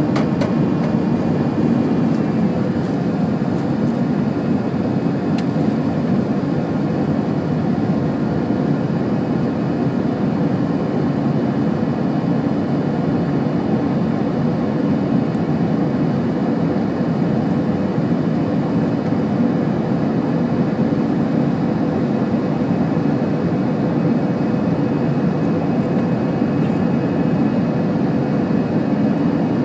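Steady cabin noise of an Airbus A321-200 airliner in flight or on the runway: an even rumble of engines and airflow heard from inside the cabin, with faint steady tones above it.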